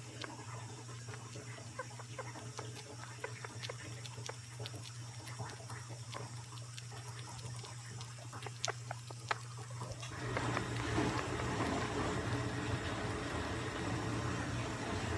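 Sugar glider making its contented 'happy' noise, a scatter of soft little clicks, over a steady low hum. About ten seconds in a louder hiss of rustling noise joins.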